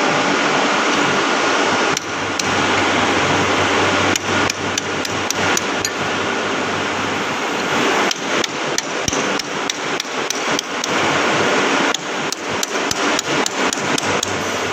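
Hammer striking a metal part of a milling machine spindle assembly over and over, a fast, uneven run of blows with short breaks.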